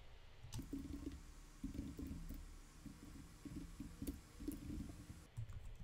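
Typing on a computer keyboard: soft, irregular key clicks.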